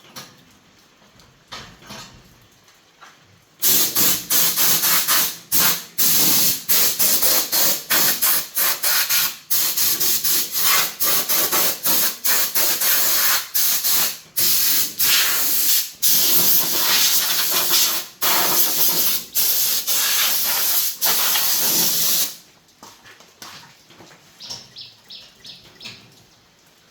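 Compressed air hissing out of a nozzle in rapid repeated bursts, starting a few seconds in and stopping near the end, with brief breaks between the bursts as the trigger is let go.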